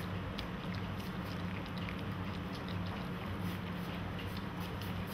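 Golden Retriever puppies eating from a plastic bowl: many small, quick wet clicks and licks of lapping and chewing. A steady low hum sits underneath.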